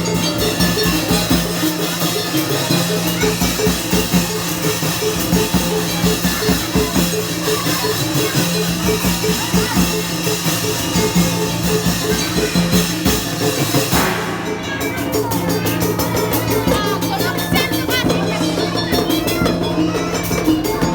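Live obrog street-band music, with drums keeping a dense, steady beat under sustained melodic tones.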